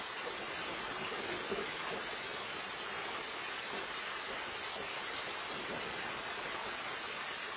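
Steady heavy rain falling during a thunderstorm, an even hiss picked up by a Nest outdoor security camera's microphone.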